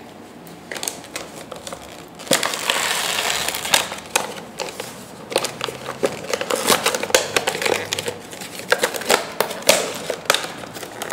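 Cardboard box and plastic packaging of a miniature figure pack being opened by hand: a long rasping rustle about two seconds in, then a run of sharp clicks, crackles and crinkling of plastic.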